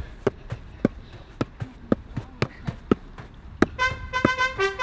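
A football being juggled, each touch off the foot or knee a sharp thud, about two to three a second. Near the end a brass-like melody of background music comes in.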